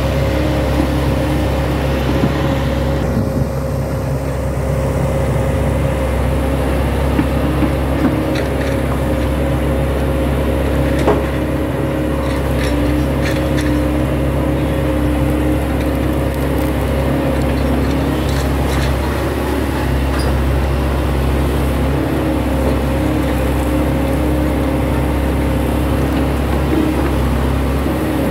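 SANY hydraulic crawler excavator's diesel engine running steadily as it digs soil with its bucket, with a few light knocks partway through.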